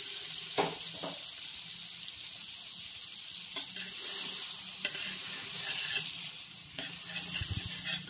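Butter sizzling as it melts in a hot metal wok, with a metal ladle clicking and scraping against the pan now and then.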